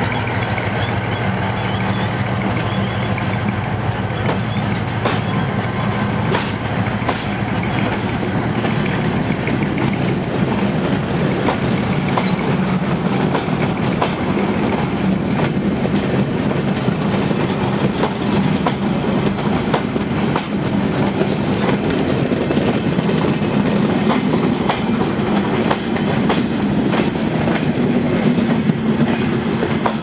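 Passenger train hauled by a G22 diesel locomotive pulling out of a station. Its coaches roll past steadily, with the wheels clicking over rail joints and switches.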